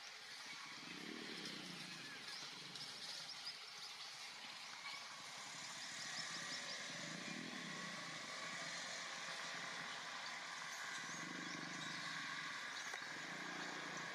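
Outdoor background: a steady high-pitched hum, with the low sound of distant motor traffic swelling and fading about three times.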